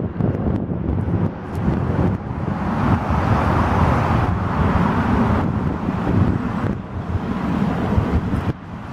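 Wind buffeting the microphone over the steady running noise of a passing paddle boat. A hiss swells in the middle and fades again.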